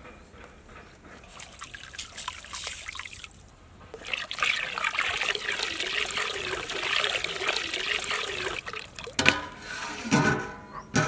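Water pouring and splashing into a large metal cooking pot over whole spices, a lighter splash first and then a heavier steady stream for several seconds. Near the end come two ringing metal clanks.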